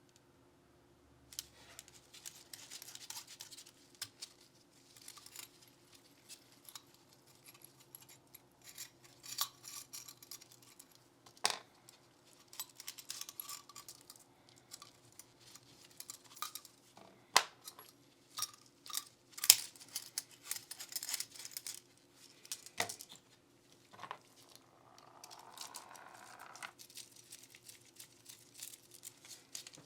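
Close-up handling and cleaning of a Glock 19 Gen 5 pistol: repeated scratchy rubbing strokes, each a second or two long, broken up by sharp clicks and taps of parts and tools, a few of them much louder.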